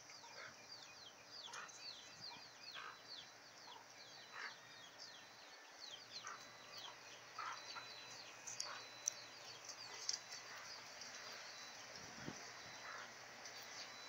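Faint chorus of short, falling bird chirps with free-range chickens clucking among them, and a single sharp click about nine seconds in.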